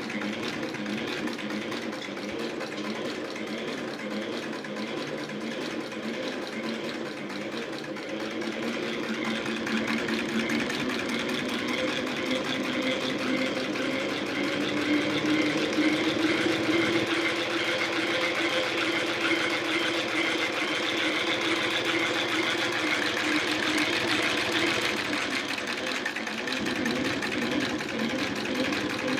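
Vintage National sewing machine running steadily. It picks up speed and gets louder about ten seconds in, then eases off near the end.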